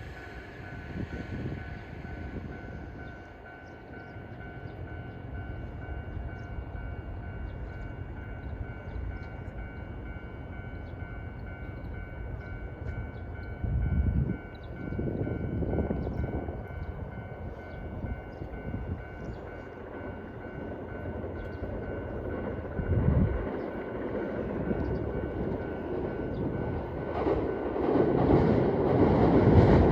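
Level crossing warning alarm ringing steadily over a low outdoor rumble. In the last few seconds a Tokyo Waterfront Area Rapid Transit 70-000 series electric train approaches, its noise growing louder.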